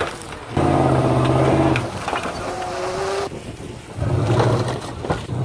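Dodge Ram 1500 monster truck's Hemi V8 engine revving hard in two bursts, about half a second in and again about four seconds in, running lower in between as the truck works over the crushed cars.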